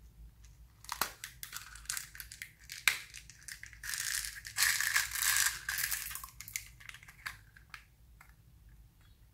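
Hard plastic toy container clicked and worked open by hand, with several sharp clicks. Then small plastic pearl beads rattle and pour out of it for about two seconds, followed by a few scattered clicks.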